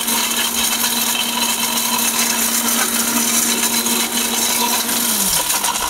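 Orpat blender motor running at full speed, grinding 250 g of turmeric in its 2.7-litre stainless steel jar: a loud, even whir with a steady hum. About five seconds in, the hum drops in pitch as the motor slows.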